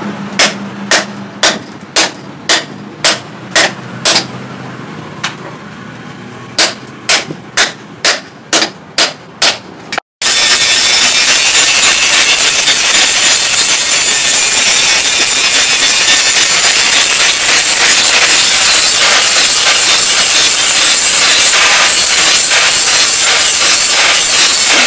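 Hammer striking steel, about two blows a second with a short pause midway, for roughly ten seconds. Then, after an abrupt cut, a steady, loud grinding on steel.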